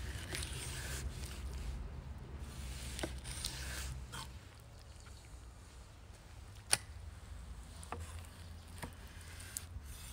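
Knife slicing raw beef liver on a wooden cutting board: soft wet cutting and handling sounds with scattered sharp knocks, the loudest a single knock about two-thirds of the way through.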